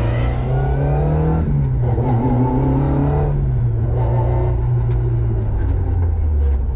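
Ford Escort RS2000 rally car's engine heard from inside the cabin, pulling hard with the note rising. About a second and a half in it briefly dips, as at an upshift, then the note sinks as the car eases off, dropping lower again near the end.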